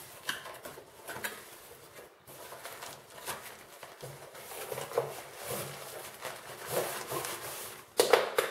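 Cardboard box flaps being pulled open and a tripod in its fabric carry bag slid out of the tall box: irregular rubbing and scraping of cardboard, with louder handling noise near the end.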